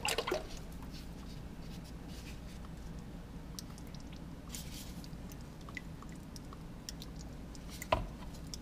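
Faint handling sounds of a car's oil filter cartridge housing being worked free by hand and lowered out over a drain pan: scattered small clicks and rubbing over a low steady hum, with one sharper knock near the end.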